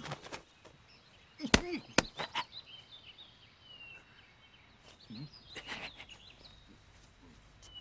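Two sharp knocks about half a second apart, with a few fainter ones after, over birds chirping in the background.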